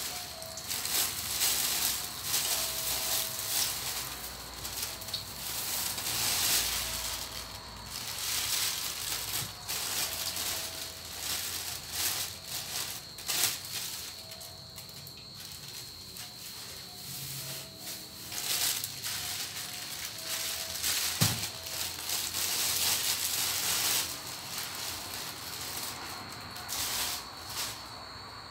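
Hot cooking oil sizzling and crackling in a steel wok as holy basil leaves deep-fry crisp, with irregular spitting pops. A single sharp knock about three-quarters of the way through.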